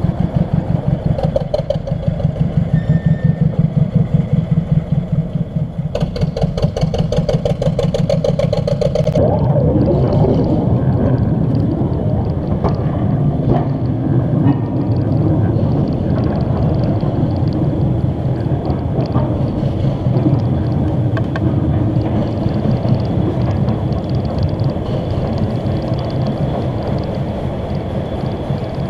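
21-inch gauge miniature locomotive 6203 'Princess Margaret Rose' running on its track: a rapid regular beat for the first several seconds, then a steady rumble and clatter of wheels on the rails.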